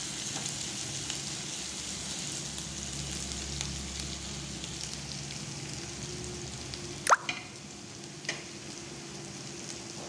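Chopped shallots and green chillies sizzling in hot oil in a pan, lightly sautéed and softening, with a spatula stirring through them. About seven seconds in there is one sharp click with a brief rising squeak.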